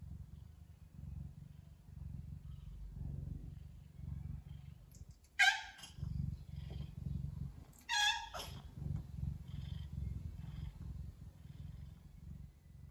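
Ragdoll cat purring steadily with a low, pulsing rumble, broken by two short, loud meows, about five seconds in and again about eight seconds in.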